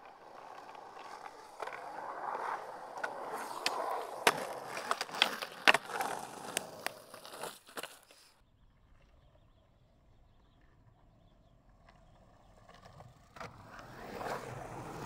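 Skateboard wheels rolling fast on pavement, with many sharp clicks along the way. The rolling cuts off abruptly about eight seconds in, leaving a faint low rumble, and builds up again near the end.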